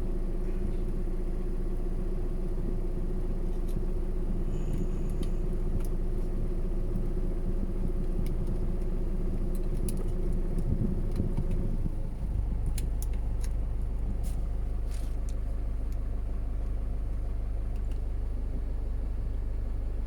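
Small electric fan motor of a USB-powered suction mosquito trap running with a steady hum that shifts to a deeper hum about twelve seconds in, with scattered clicks and light rattles from the device being handled.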